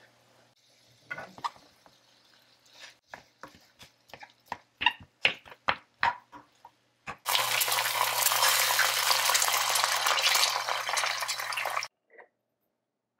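A wooden spatula scraping and knocking against a frying pan as kimchi fried rice is stirred, in a string of short irregular strokes. About seven seconds in, a loud steady hiss starts and runs for about five seconds before cutting off suddenly.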